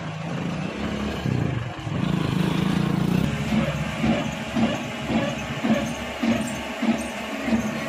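Tow-truck crane's engine running, first as a steady low hum, then pulsing unevenly about twice a second from around three seconds in.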